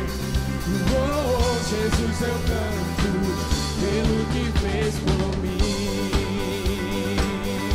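Live worship band playing: a drum kit keeping the beat, with bass and guitars, and a man singing a held, wavering melody into a microphone.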